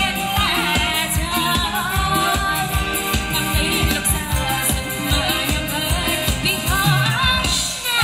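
Live band playing Thai ramwong dance music: a singer's melody over an amplified band with a steady drum beat.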